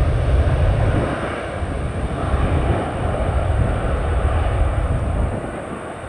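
Jet airliner engines rumbling loudly as the aircraft passes, the deep rumble dropping away about five seconds in as it moves off.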